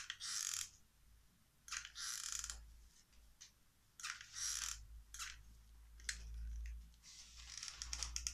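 Hot glue gun being worked in short squeezes of the trigger, a scratchy mechanical noise each time, about half a dozen times, with small clicks near the end.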